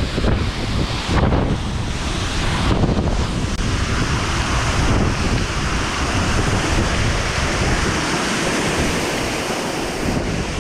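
Steady rushing roar of a waterfall. Wind buffets the microphone in gusts during the first few seconds.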